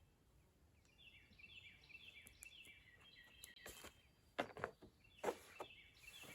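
Faint bird chirping: rapid runs of short high notes, with a few sharp knocks about four and five seconds in.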